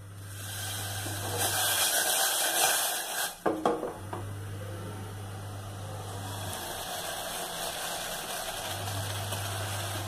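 Water with tea powder heating in a stainless steel saucepan on a gas burner, hissing as it starts to bubble toward the boil. The hiss swells over the first few seconds and then settles, with a couple of brief knocks about midway.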